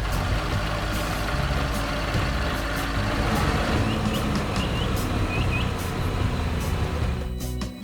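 Heavy truck or construction machine engine running, a dense steady mechanical noise with a strong low rumble that stops shortly before the end.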